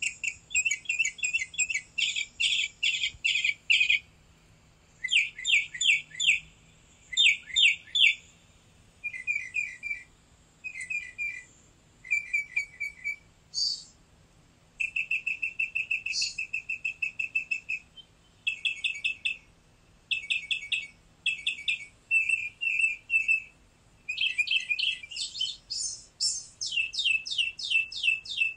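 Small songbird chirping in quick trilled bursts of rapid high notes, each burst repeated after a short pause.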